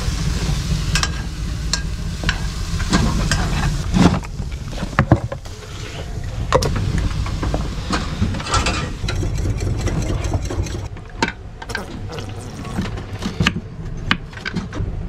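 Galley cooking clatter: a utensil knocking and scraping in a pan and a knife tapping on a cutting board, in scattered clicks and knocks over a steady low rumble.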